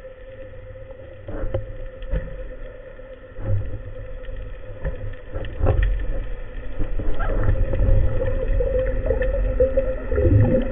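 Underwater sound: a steady mechanical drone under irregular low thumps and swishes of moving water, which grow louder through the second half.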